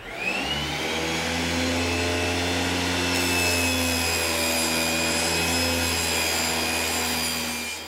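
Table saw starting up with a rising whine, then running steadily at a loud hum as the spinning blade cuts a sheet of plywood, the hiss getting brighter from about three seconds in.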